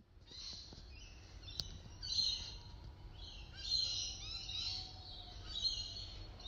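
Many small birds chirping and twittering in overlapping waves, over a faint low rumble.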